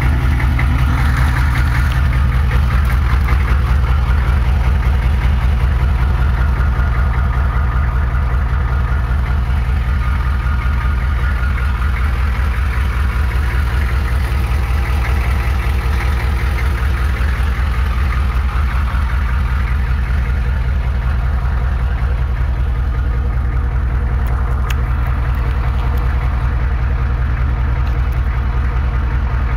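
1992 Chevrolet 6.2L diesel V8 idling steadily through a 3-inch exhaust with a Flowmaster 40 muffler and a 4-inch tailpipe. The exhaust note is low and even, a little louder in the first few seconds.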